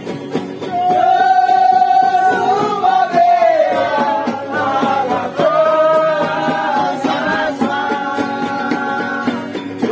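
A group of men singing together in several voices, holding long drawn-out notes, with acoustic guitars strummed along underneath. The voices come in strongly about a second in.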